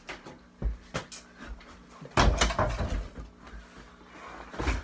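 Knocks and thumps from play on an over-the-door mini basketball hoop: the ball and hands hitting the hoop and door, and feet landing on the floor. There are a few sharp knocks in the first second, a loud cluster of thuds about two seconds in, and another knock near the end.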